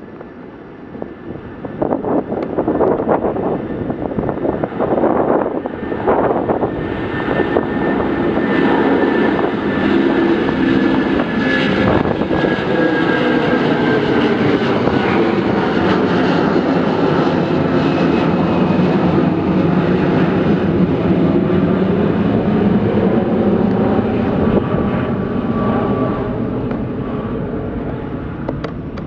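Twin-engine Airbus A330-300 jet airliner taking off and climbing past overhead. The engine noise builds to a loud, steady rumble with whining tones that slide down in pitch as the plane passes, then slowly fades as it climbs away.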